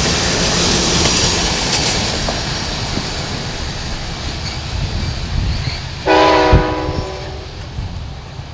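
Amtrak Pacific Surfliner passenger train pulling away, its rumble and wheel noise slowly fading, with one horn blast about six seconds in that sounds for about a second and trails off.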